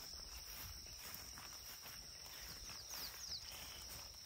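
Faint dusk ambience: insects chirring in a steady high-pitched tone, with a few short high chirps about three seconds in.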